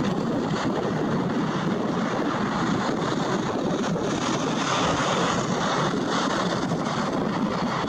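Boeing 787-9 jet engines running at low taxi thrust, a steady even noise with no distinct whine or change, with wind on the microphone.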